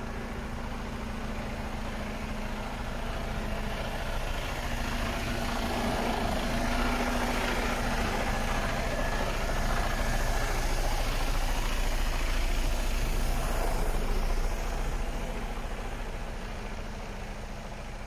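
Diesel engine of a Mercedes-Benz Arocs 4142 tipper truck idling steadily, a 12.8-litre straight-six. It grows louder through the middle and falls back near the end.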